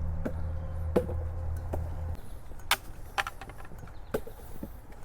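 Footsteps on a wooden boardwalk: irregular hollow knocks of boots on the planks, roughly one or two a second. A low steady hum runs under them and cuts off about two seconds in.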